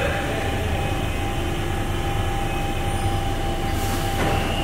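London Underground 1992-stock train at the platform, with a steady low hum and a steady whine from its running equipment. A short hiss of air comes about four seconds in.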